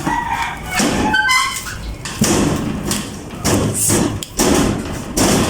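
Knocks and handling noises as a cover is fitted over an electrical box of taped wire splices, with a brief bird chirp about a second in.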